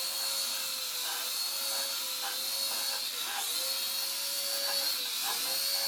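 Small electric rotor motors of an Air Hogs Helix 360 remote-control flyer whirring with a steady high whine, the pitch dipping briefly and recovering every second or so as the throttle changes.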